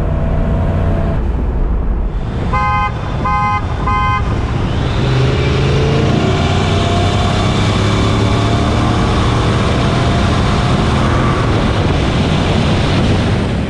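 Pickup engines running, then three short car-horn toots, then Ford 5.4-litre V8 truck engines accelerating hard, rising in pitch again and again as the trucks pull away.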